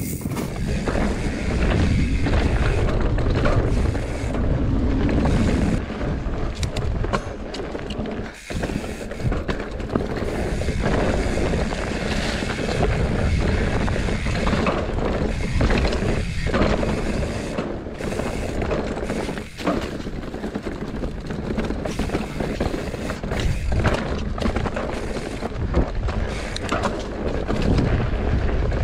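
Mountain bike riding fast down a rocky dirt trail: wind buffeting the handlebar-mounted camera's microphone, with the tyres and bike rattling over the ground.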